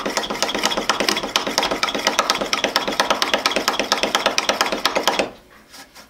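Millers Falls #45 push drill pumped by hand, its spiral driver clattering in a fast, even run of clicks as the drill point bores into pine. It stops about five seconds in, once the bit goes through the board.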